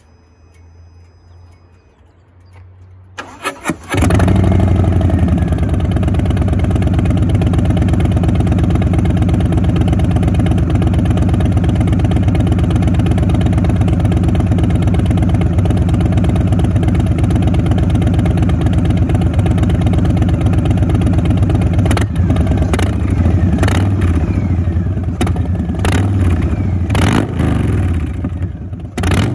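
Harley-Davidson Softail's Milwaukee-Eight V-twin engine cranked by its starter and catching about four seconds in, then idling steadily. In the last third the throttle is blipped over and over in short revs.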